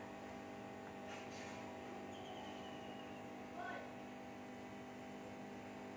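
Steady electrical hum made of several even tones at a low level, with a faint soft click about a second in.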